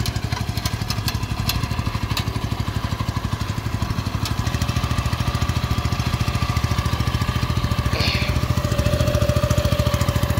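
Small Honda stationary engine on a homemade pontoon water bike running steadily with a fast, even chug. A steady whine comes in over it near the end.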